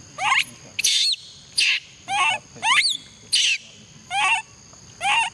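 Baby pig-tailed macaque calling over and over: short, high, pitched cries, each rising and falling, coming about every half second to second. These are the distress cries of an infant monkey on its own.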